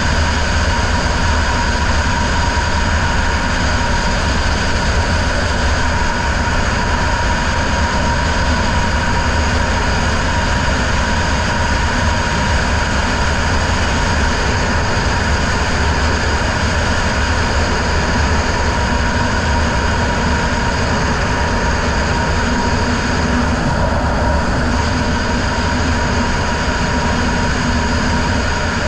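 Racing riverboat's outboard motor running steadily at speed, heard from a helmet camera, with a constant whine over a heavy low rumble.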